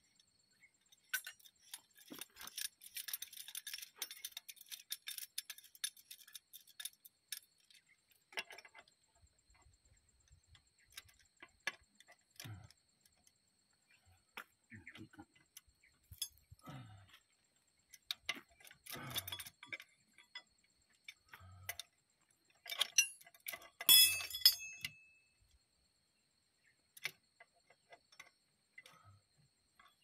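Metal hand tools clinking, tapping and scraping against the steel sprocket hub and bolts of a bulldozer's final drive, in irregular clicks and knocks. A dense run of small ticks comes in the first several seconds, and the loudest clatter comes about three quarters of the way through.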